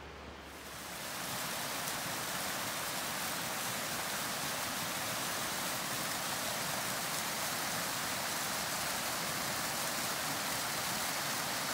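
Rushing creek water: a steady, even hiss that swells up about a second in and then holds.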